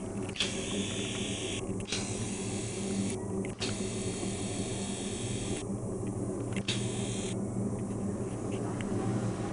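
A pot of tulsi, ginger and black pepper decoction heating on the stove: a steady hiss over a low hum, with a few faint clicks.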